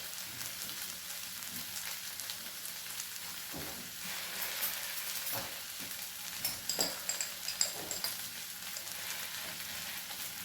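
Tomato and chilli-powder masala sizzling softly in oil in a pan over low heat, with a few short scrapes and knocks of a spoon against the pan as it is stirred.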